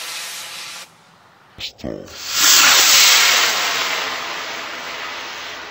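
Estes C6-5 black-powder model rocket motor burning: a loud rushing hiss that fades and stops abruptly just under a second in. After a few clicks, a second loud hiss builds about two seconds in and slowly fades.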